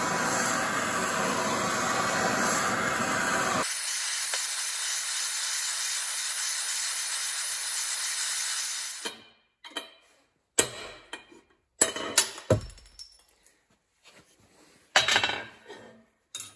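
Hand-held gas torch flame hissing steadily while it heats a torque converter housing to free a stuck bearing; a lower roar drops away about 3.5 s in, and the flame shuts off after about nine seconds. Several sharp metallic clinks and knocks follow as the hot metal part is handled.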